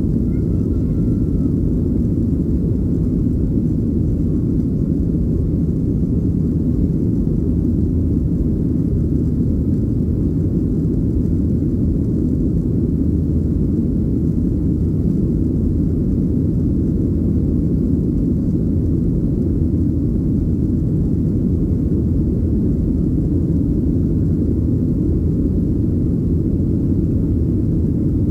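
Cabin noise of a Boeing 737-700 climbing out after takeoff: its CFM56-7B jet engines at climb power, heard through the fuselage as a loud, steady, deep rumble.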